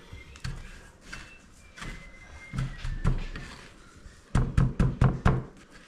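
Hands patting and pressing a mozzarella brick into panko breadcrumbs in a glass baking dish: scattered soft knocks, then a quick run of about six dull thuds a little over four seconds in.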